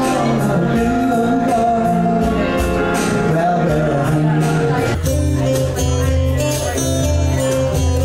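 Live music in a lounge bar: a singer performing over keyboard backing, the melody rising and falling. About five seconds in, a heavier pulsing bass line comes in.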